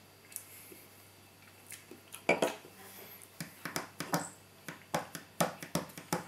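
Wet lip smacks and tongue clicks of a man tasting a mouthful of beer: a string of short, uneven clicks, with one louder knock about two seconds in.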